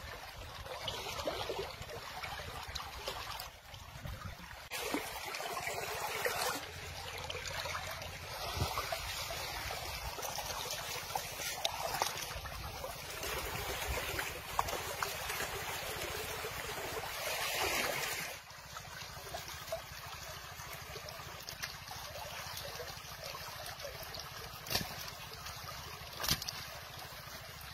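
Shallow river water flowing, a steady rushing noise, with a few short knocks near the end.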